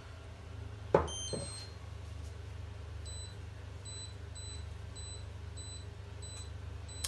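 A sharp tap on the glass hob's touch controls about a second in, answered by a short electronic chirp, then a run of short, evenly spaced beeps about every two-thirds of a second as the hob's setting is stepped. A steady low hum runs underneath.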